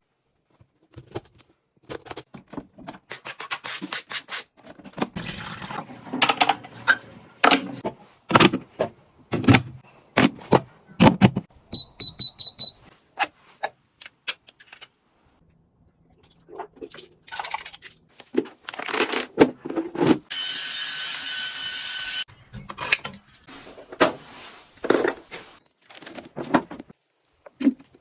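Household clatter: many separate knocks and clinks of things being handled, with a quick run of about five high electronic beeps from an appliance about twelve seconds in, and a steady noisy whoosh for about two seconds past the twenty-second mark.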